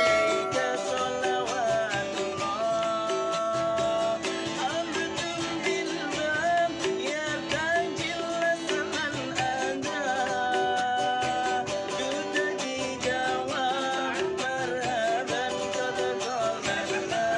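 Street busker singing a melody with long, wavering held notes, accompanied by steadily strummed guitar.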